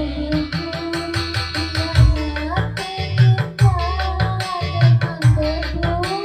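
Music: a wavering sung melody over a steady drum beat and heavy bass.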